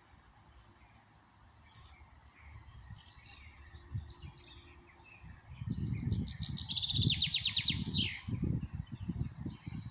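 Songbirds singing: scattered chirps, then about halfway a loud trill of rapid repeated notes that steps down in pitch, climbs again and ends in a falling flourish about eight seconds in. Low, irregular rumbling thumps accompany the trill from about halfway on and are the loudest sound.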